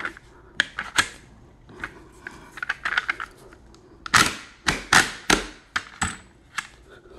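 Polymer rifle-magazine speed loader being pushed down to strip .223 cartridges into an AR-style magazine: a series of sharp plastic-and-brass clicks and clacks, denser and louder from about four seconds in.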